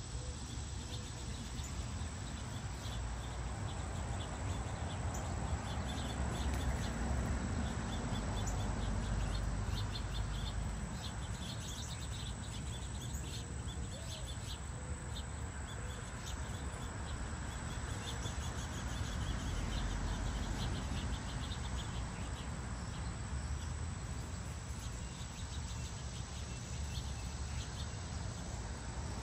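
Outdoor garden ambience: many short, high chirps come and go, thickest in the middle, over a steady hiss and a low rumble.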